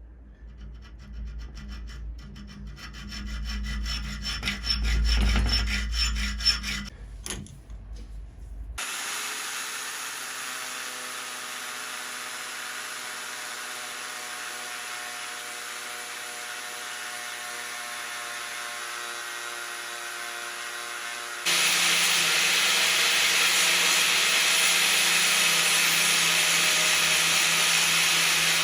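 Fast, even rasping strokes of a hand file working steel for about nine seconds. The sound cuts to a steady hiss with a faint hum, which jumps much louder after a second cut near the end.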